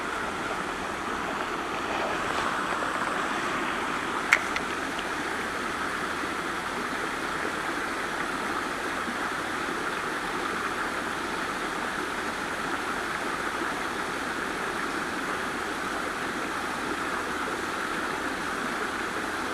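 Stream water running steadily over stones, a continuous rushing hiss. A single sharp click about four seconds in.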